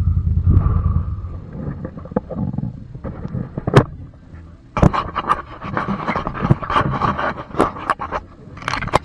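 An ATV engine running at a low, pulsing idle for about a second, then dropping away. A series of scrapes, knocks and clatters follows, busiest in the second half.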